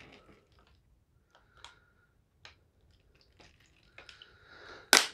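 Water being added to a flameless ration heater bag: a few faint drips and small plastic ticks, then a short trickle about four seconds in, ending in one sharp rustle of the bag.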